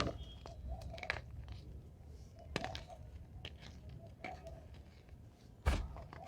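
Reformed gym chalk bitten and chewed close to the microphone: dry, crumbly crunches at irregular intervals, with one loud crunch near the end.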